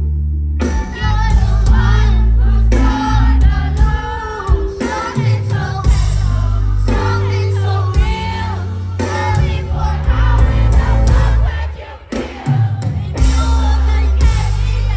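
Live concert music: a singer's voice over a loud backing track with heavy bass, the music dropping out briefly near the end.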